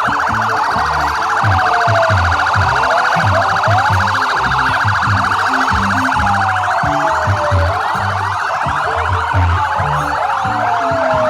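Several ambulance sirens sounding at once: overlapping slow rising and falling wails over a fast warbling yelp, all steady in loudness.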